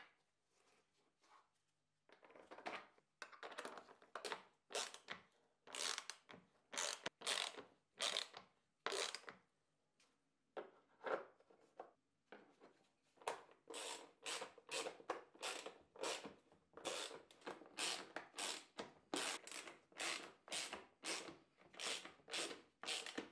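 Socket ratchet wrench clicking in short runs as bolts are tightened, starting about two seconds in, with a pause of a couple of seconds past the middle.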